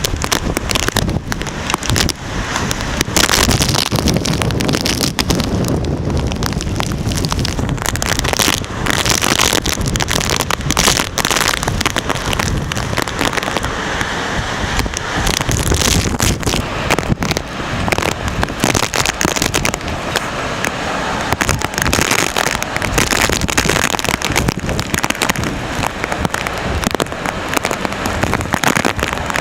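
Strong typhoon wind gusting and buffeting the microphone, giving a dense crackling rush with many short thumps.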